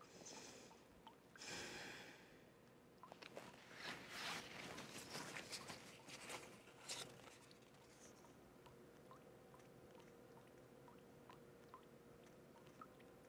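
Faint rustling and crinkling of a sheet of paper being picked up and handled, loudest in the first half, then a few light ticks over a low steady room hum.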